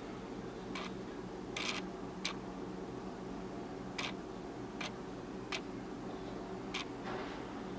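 Blender motor running with a steady hum, with scattered sharp clicks, about seven of them at uneven intervals.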